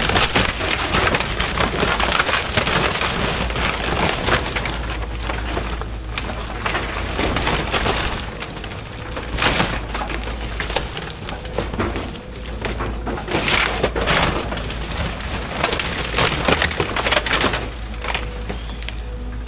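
Excavator bucket crushing and tearing apart a wooden shed: boards cracking and splintering, with repeated crashes and clattering debris in waves, loudest near the start and again in the second half. Under it the excavator's diesel engine runs steadily.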